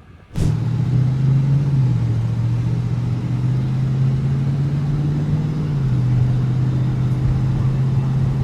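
A motor vehicle engine running steadily, starting abruptly about half a second in, with its pitch dropping slightly twice.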